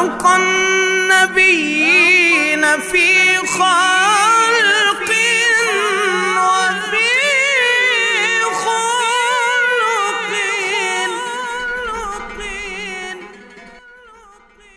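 A solo voice singing a long, ornamented, wordless melismatic phrase in Arabic devotional style over a steady drone. It fades out near the end.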